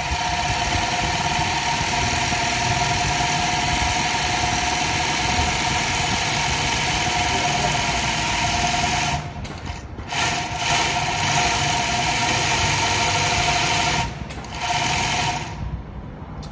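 XC-2150H post-bed zigzag lockstitch sewing machine running fast, stitching straw braid into a hat: a steady mechanical whir with a constant whine. It pauses briefly twice, about nine and fourteen seconds in, and stops a second before the end.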